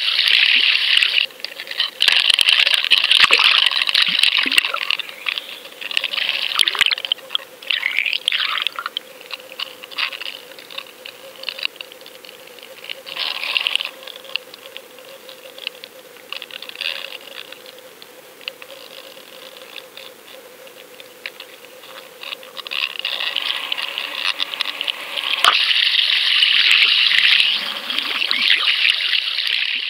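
Water rushing and gurgling past a submerged GoFish Cam underwater fishing camera towed on a line. It is loud at first, eases through the middle and swells again near the end, with scattered clicks.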